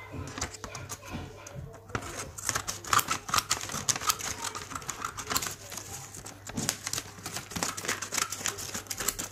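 A sheet of paper being handled, rustling and crinkling in dense, irregular crackles that get busier about two seconds in.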